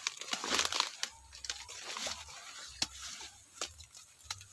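Broccoli plants being pulled and torn by hand: crunching and rustling of leaves and stems, with a few sharp snaps.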